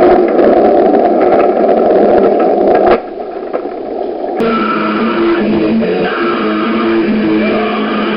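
Guitar music: loud and distorted-sounding for about three seconds, then quieter, with clear held notes from about four seconds in.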